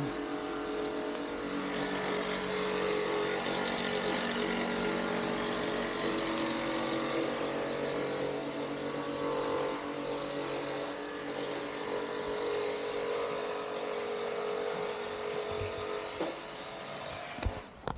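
Road traffic with a large vehicle's engine running, a steady drone with a hum in it; it fades away near the end.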